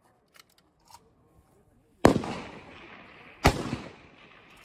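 Two rifle shots about a second and a half apart from a precision rifle fired off a barricade. Each is a sharp crack followed by a decaying echo rolling across the range.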